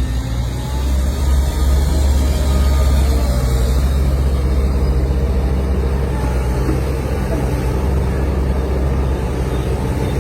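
Heavy diesel engine of an excavator or backhoe running steadily, with a deep, even low hum.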